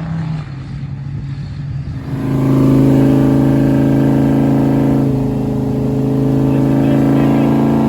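A vehicle engine running at a steady speed, with an abrupt switch about two seconds in to a louder, steady engine note.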